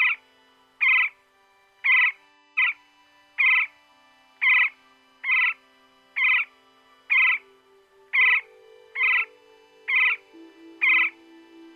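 Woodpecker calling: a short, loud, harsh note repeated evenly about once a second, over soft background music with slowly changing held notes.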